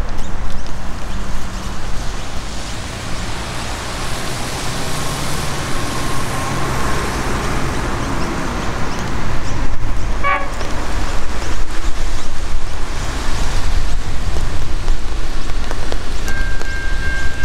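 Steady low engine rumble with road-traffic noise. About a second before the end, a steady high two-tone electronic warning signal begins.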